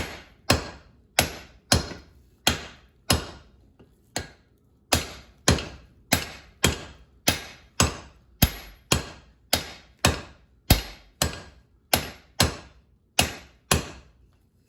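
Hand hammer blows on hot steel over an anvil, a steady run of sharp ringing strikes less than a second apart while a hammer eye drift is forged. The strikes stop briefly about three and a half seconds in, with one light tap, then resume at the same pace.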